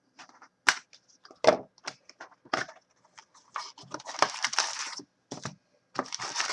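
Packaging of a trading-card box being torn open and crumpled: sharp snaps and cracks, then two spells of dense crinkling.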